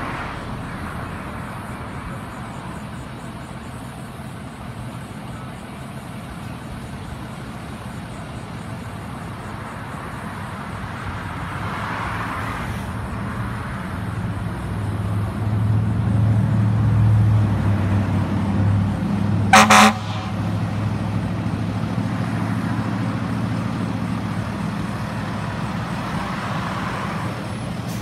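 Fire-rescue ambulance's engine running, growing louder about halfway through as it pulls out of the station bay, with one short horn toot about two-thirds of the way in.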